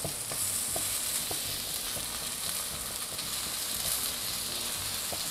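Plant-based chicken skewers sizzling steadily on a hot oiled grill, with a few faint pops.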